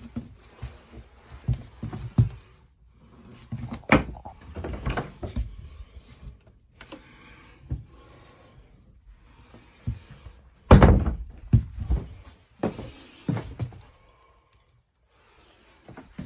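Irregular knocks, thunks and clatter of things being handled and bumped, with the heaviest cluster of thumps about two-thirds of the way through.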